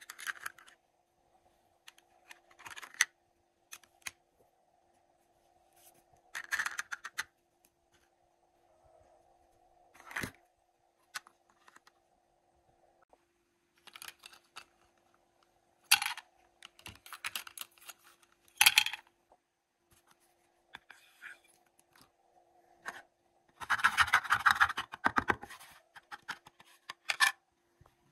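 Small plastic toy cookware handled by hand: scattered clicks, taps and scrapes as a plastic spatula works in a toy pan and pot and pieces are set down. A longer run of clattering and scraping comes near the end. A faint steady hum runs underneath.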